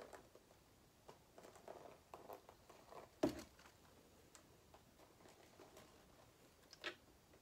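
Faint, scattered pattering and rustling as water from a plastic watering can is poured over a layer of newspaper bedding in a plastic worm composting bin, with one sharp knock about three seconds in.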